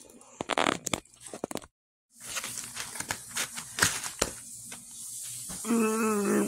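Crackling, tearing handling noise of pepperoni pizza slices being pulled apart from the pie in a cardboard box, with scattered clicks. The sound cuts out briefly about two seconds in. Near the end there is a short hummed, voice-like tone.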